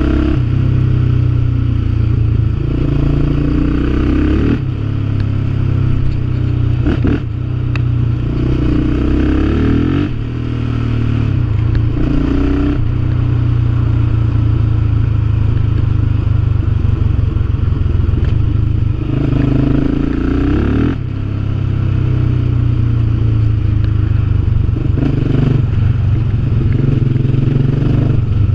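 Yamaha Raptor 700R quad's single-cylinder four-stroke engine running under way through its repaired exhaust. The engine note rises and falls as the throttle opens and closes, easing off briefly a few times.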